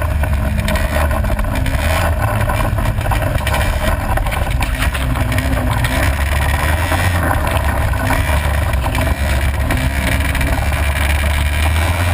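Four-wheeler (ATV) engine running steadily under throttle, heard loud and close from a camera mounted on the quad itself.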